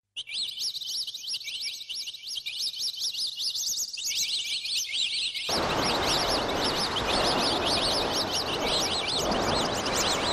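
Birds chirping in quick repeated high calls. About five and a half seconds in, the steady rush of a large waterfall comes in under them.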